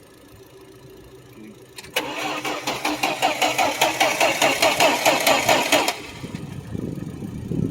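1972 Plymouth Valiant's engine being cranked over by its starter on a weak, jump-charged battery, turning in quick even beats, about four or five a second, for around four seconds without firing, then stopping.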